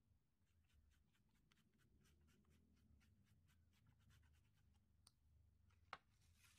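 Faint, rapid dabbing of a stencil brush through a plastic stencil sheet onto fabric, about five light taps a second, with one sharper click near the end.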